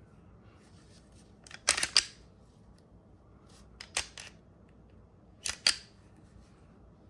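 Sharp mechanical clicks from handling a Glock 47 pistol and its parts: three quick groups of two or three clicks, about two seconds apart.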